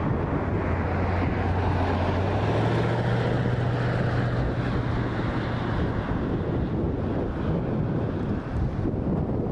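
A vehicle in motion, its engine hum rising slightly in pitch about two and a half seconds in, under heavy wind noise on the microphone.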